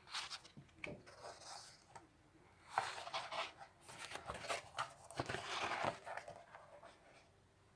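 Pages of a paperback coloring book being turned and handled: paper rustling in several short bursts.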